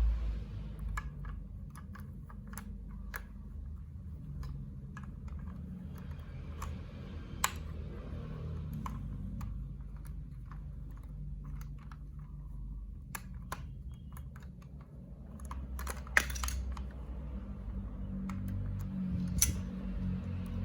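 Irregular sharp plastic clicks and taps from marble-run building blocks, over a steady low rumble, with a louder click about 16 seconds in and another near the end.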